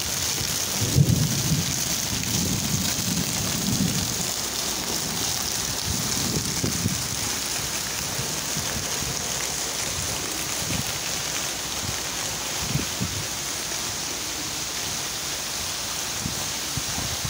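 Heavy rain pouring down in a steady hiss. Low rumbles come in over it, loudest in the first few seconds and fainter now and then after.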